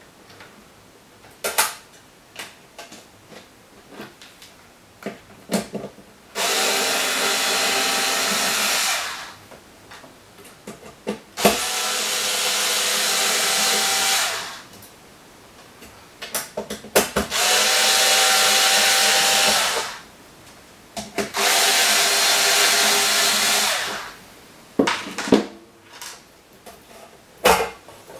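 Power screwdriver motor running in four steady bursts of about three seconds each, with light metallic clicks and knocks in between.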